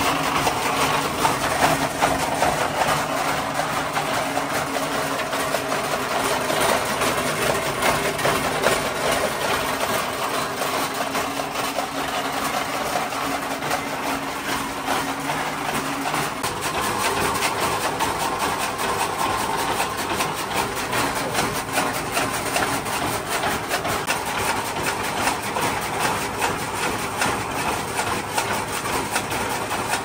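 An engine running steadily, its steady hum changing about halfway through.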